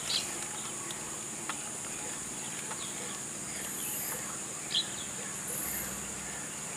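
Steady high-pitched drone of insects, with a couple of short bird chirps, one about five seconds in.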